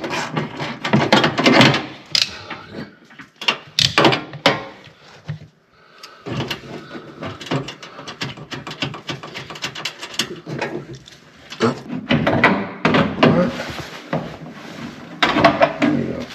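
Repeated knocks, clicks and clatter of hard objects being handled and moved about, with a short quieter pause partway through.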